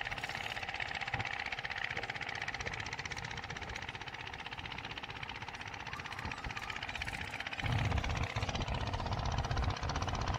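Spinning reel being wound, its gears ticking rapidly and evenly. A low rumble joins in about seven and a half seconds in.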